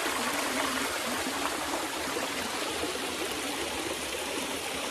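Mountain stream running over rock, a steady even wash of water.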